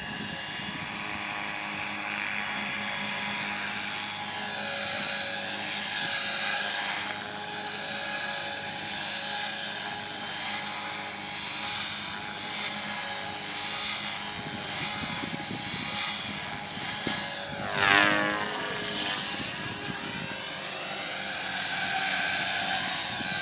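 Electric 450-size RC helicopter (Align T-Rex 450 Dominator) in flight: the motor and rotors give a steady whine with many overtones. About 18 seconds in it is loudest and its pitch sweeps sharply as it passes close.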